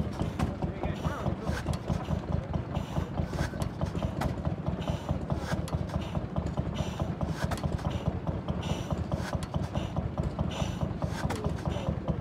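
Vintage stationary engine running, with a fast, steady mechanical clatter and a louder beat about every two seconds.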